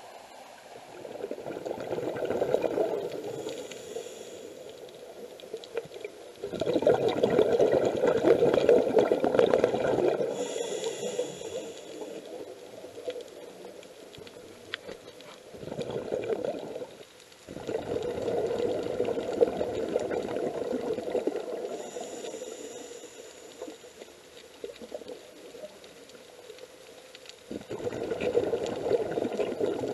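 Scuba diver breathing through a regulator, heard underwater: about five long bubbling bursts of exhaled air a few seconds apart, with a thinner hiss of inhaling in some of the gaps between them.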